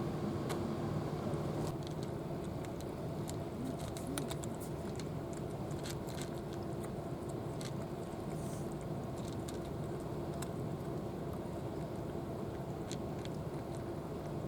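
A cat crunching dry food, sparse irregular clicks of chewing, over a steady low hum.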